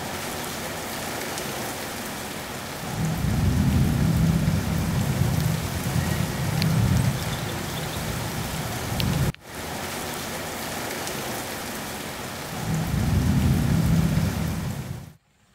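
Heavy rain falling steadily, a dense hiss, with low rumbles that swell and fade, once from about three seconds in and again near the end. The sound breaks off for a moment about nine seconds in.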